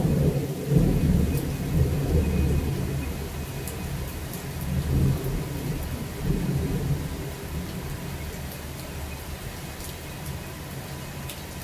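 Thunder rolling and slowly dying away over several seconds, a deep rumble that swells a few times early on before fading, with steady rain underneath.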